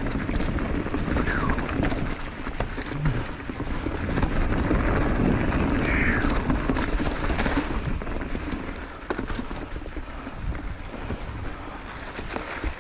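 Mountain bike riding down through a rock garden: tyres rolling and rattling over rocks, with many sharp knocks from the bike and wind rushing on the microphone.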